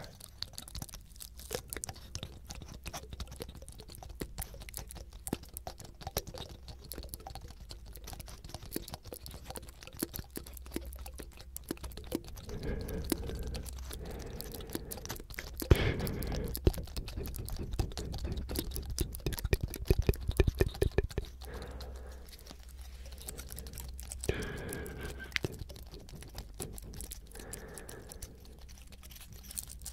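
Fingertips scratching and flicking the scales of a pine cone held close to the microphones: a dense run of small crackling clicks, busiest in the middle.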